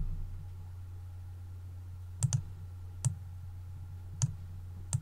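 Clicks of a computer mouse and keyboard: a quick pair about two seconds in, then three single clicks roughly a second apart, over a steady low hum.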